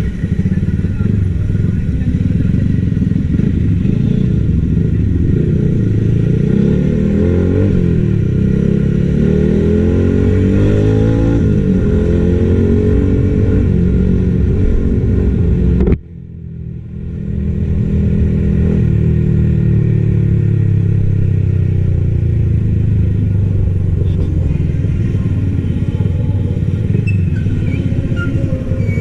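Yamaha XSR155's single-cylinder engine running under way, its pitch rising and falling as the bike speeds up and changes gear. About halfway through the sound cuts out suddenly and comes back over a couple of seconds, then the engine note sinks slowly as the bike slows.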